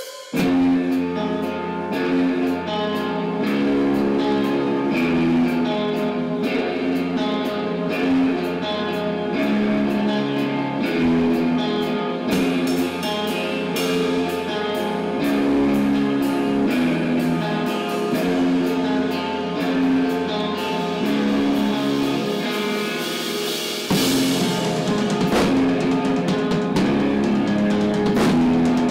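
Live rock band playing electric guitar, bass and drum kit, coming in together just after a brief silence and repeating a riff. About 24 seconds in it gets louder, with more cymbal crashing.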